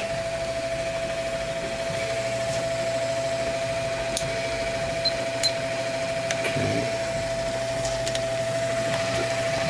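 Steady hum and hiss of running equipment with a constant high whine. A few faint clicks about four to five seconds in, as a multimeter's dial is turned.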